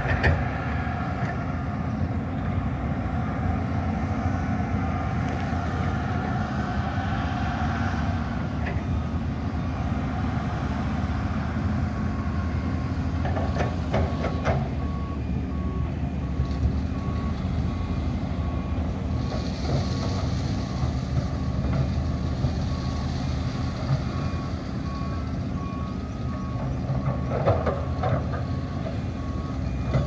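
Heavy earthmoving machinery running with a steady low diesel rumble; partway through, a construction vehicle's reversing alarm starts beeping at a regular pace and keeps on. A few short knocks stand out, two in the middle and one near the end.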